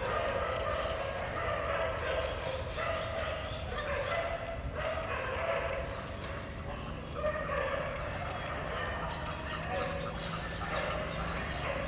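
An insect calling steadily in the forest: a high, even pulse repeated about five or six times a second, over a shifting lower background din.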